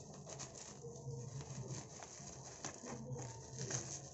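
Scissors snipping and crinkling through thick plastic bubble-wrap packaging, a faint run of small irregular clicks and rustles.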